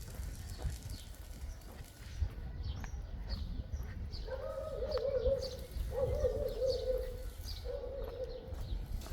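A dove cooing: a repeated low, warbling coo in phrases about a second long, starting about four seconds in. Small birds chirp high above it, over a steady low rumble.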